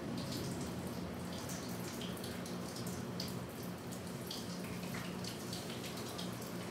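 Water running from a tap and splashing and dripping in a sink, heard as many small irregular splashes, over a steady low hum.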